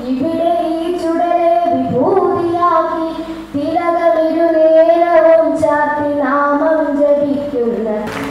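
A child singing a slow melody, holding each note for a second or two, with a falling slide on the last note near the end.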